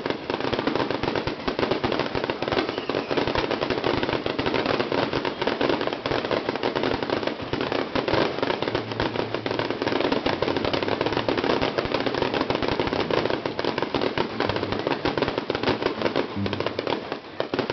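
Fireworks crackling: a dense, continuous run of rapid pops and snaps that keeps a steady level without a pause.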